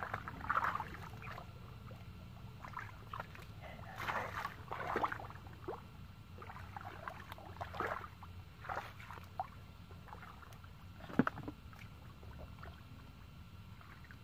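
Hands sloshing and splashing through a shallow muddy puddle, feeling in the mud for fish: irregular small splashes and squelches, with one sharper slap about eleven seconds in.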